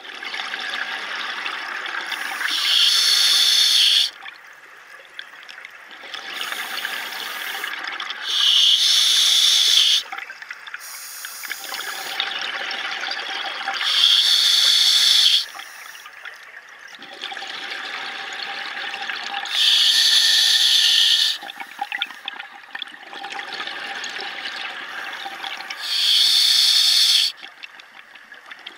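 A scuba diver breathing through a regulator underwater: a loud hissing breath about every six seconds, five times, with a quieter rushing, gurgling noise between the breaths.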